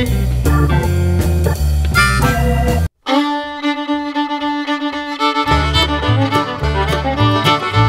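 Background music for an intro. A track with a bass line and beat stops dead about three seconds in, and a new track starts with long held notes. Its bass and beat join about two and a half seconds later.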